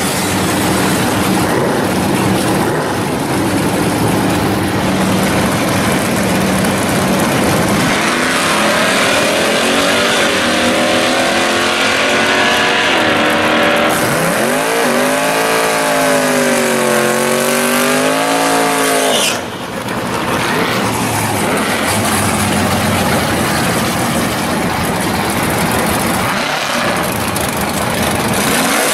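Drag cars' engines at the strip: loud engine and tyre noise at first, then engines revving hard, their pitch climbing and swinging up and down as cars launch and run. There is an abrupt cut about nineteen seconds in, followed by engine noise again.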